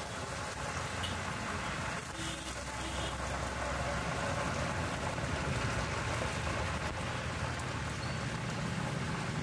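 A large steel kadai of water boiling hard on the stove: a steady bubbling hiss. Motorbike engines run close by in street traffic.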